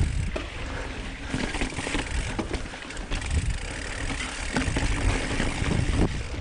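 Mountain bike riding over a rocky dirt trail: tyres rolling on dirt and rock, with frequent knocks and rattles as the bike hits bumps, over a low rumble of wind on the microphone.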